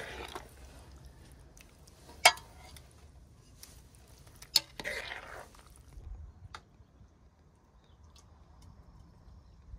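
Dishes and utensils clinking: two sharp clinks, the louder about two seconds in with a brief ring, and a short scrape around the middle, among a few lighter taps.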